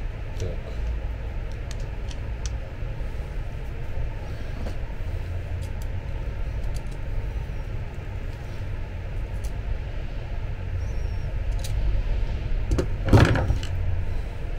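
Small metal clicks of pliers working on the threaded spindle of an electric bed's linear actuator, over a steady low hum. One louder scraping clatter near the end.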